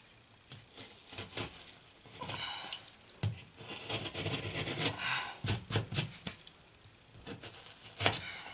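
Utility knife blade scraping and slicing away frayed paper and gypsum around the edge of a hole in drywall, in short, uneven strokes.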